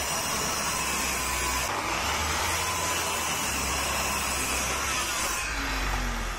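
Electric miter saw running steadily as its blade cuts across a wooden board.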